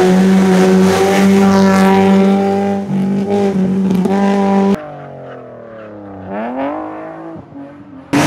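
Opel Corsa hillclimb race car held at high revs, steady in pitch, with a brief dip about three seconds in, then cutting off suddenly. A quieter, more distant car follows, its engine note falling and then climbing again.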